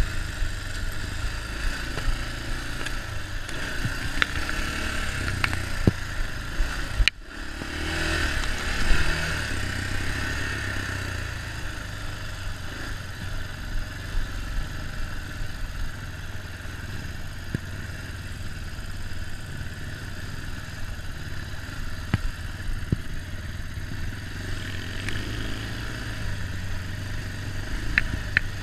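Small four-wheeler (ATV) engine running steadily while being ridden, with occasional sharp clatters and rattles, and a brief break in the sound about seven seconds in.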